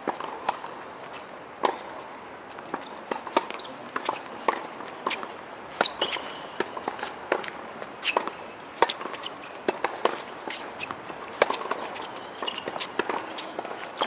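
Tennis rally on a hard court: racket strikes and ball bounces, with more sharp knocks from play on neighbouring courts and players' footsteps, irregular and several a second.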